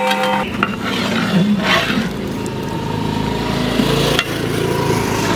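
Large pot of chicken masala boiling hard over a full gas flame, a steady bubbling and burner noise, while a metal ladle stirs through it, with a sharp knock of the ladle against the pot about four seconds in.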